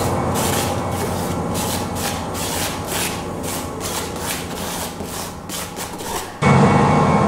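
Repeated rubbing, scraping strokes of thick paint being worked across a painting panel, about three strokes a second. Near the end, music cuts back in abruptly.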